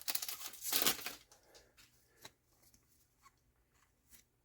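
Crinkling of a booster pack's wrapper for about the first second, then a few faint clicks of cards being handled.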